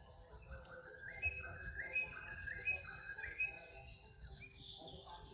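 Insects chirping in a steady, fast, high pulse, about eight pulses a second. About a second in, a run of short whistled notes, each rising in pitch and stepping higher, sounds over it for a couple of seconds.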